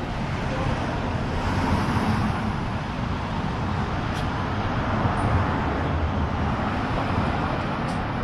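Road traffic: a steady rush of passing vehicles, swelling slightly now and then.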